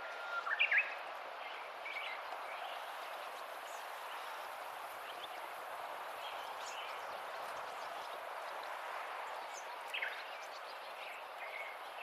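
Shallow stream water running steadily over stones, with short songbird chirps over it: a quick cluster of chirps about half a second in, the loudest sound, a few fainter ones scattered through the middle, and another sharp chirp about ten seconds in.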